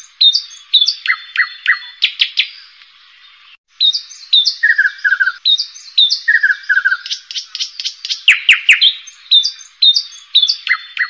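Birdsong: many short, sharp chirps in a repeating pattern, with runs of quick falling notes, pausing for about a second around three seconds in.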